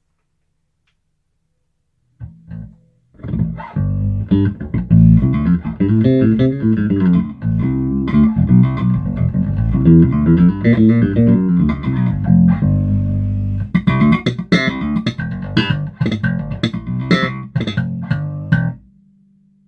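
Electric bass played through an Aguilar TH500 bass amp head with its controls untouched: a single note about two seconds in, then a steady run of bass lines, with sharper, percussive attacks over the last few seconds. The playing stops near the end, leaving a low amp hum.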